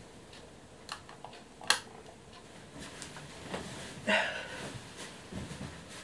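A sharp click of a wall light switch about two seconds in, with a few fainter clicks around it, then soft rustling of bedding as someone settles into bed.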